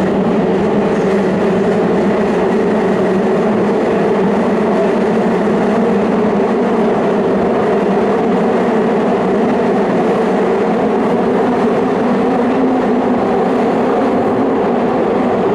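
Tobu 50000-series electric train heard from inside a motor car as it runs through an underground tunnel after pulling out of a station: a steady, loud rumble of wheels and running gear, with a low hum held at an even pitch, the tunnel walls closing the sound in.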